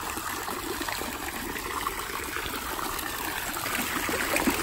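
Fountain spouts splashing down into a hot tub's churning water: a steady splashing, trickling noise, a little louder near the end.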